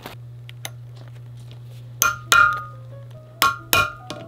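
A hammer strikes a steel hand tool on a metal block four times, in two quick pairs, with a metallic ring on each strike.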